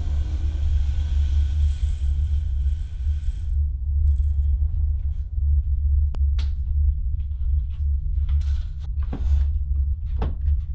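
A steady deep rumbling drone, typical of a horror film's sound design. A hiss over it stops about three and a half seconds in, and a few short clicks and faint rustles come in the second half.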